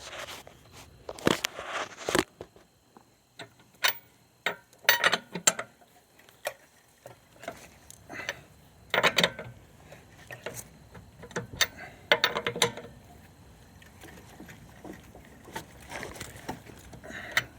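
Tire iron clinking and scraping against a car wheel's lug nuts as the nuts are loosened a little at a time: irregular metal clanks and knocks with short quiet gaps.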